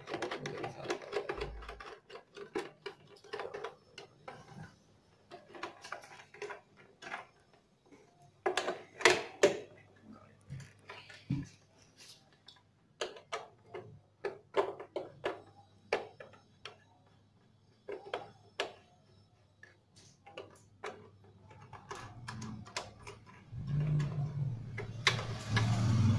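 Phillips screwdriver working screws out of a motorcycle's plastic headlight cowl: scattered clicks and ticks of the tool against the screws and plastic. Near the end there is a louder stretch of rubbing and knocking as the panel is handled.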